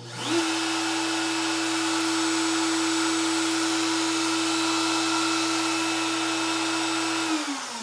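Makita trim router mounted on a CNC machine, switched on and running free with no cut. It spins up within half a second to a steady high whine with a rushing hiss. Near the end it is switched off and winds down in a falling whine.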